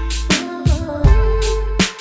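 Background music with a beat: deep sustained bass notes, pitched instrument lines and regular drum hits.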